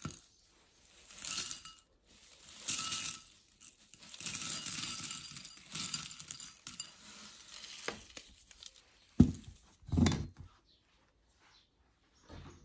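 Dry cereal flakes poured from a stainless steel canister into a glass bowl, rattling and clinking against the glass in several pours. Near the end come two dull knocks, the loudest sounds, as the canister is set down on the table.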